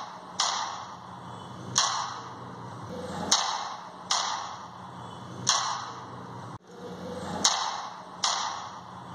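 Handgun fired into the air: about seven single shots at uneven intervals of one to two seconds, each a sharp crack with a short echoing tail.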